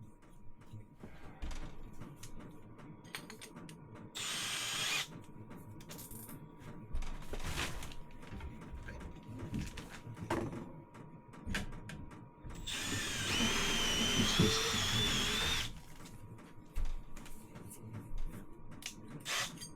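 A small motorised tool runs in two bursts, briefly about four seconds in and then for about three seconds near the middle, its whine wavering in pitch, amid scattered clicks and knocks of tool handling.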